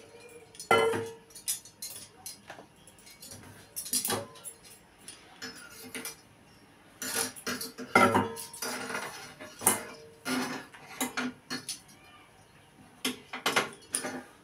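Stainless steel kitchenware clanking against a steel pan on a gas stove: a dozen or so separate sharp knocks and clinks, some ringing briefly, the loudest about a second in and about eight seconds in.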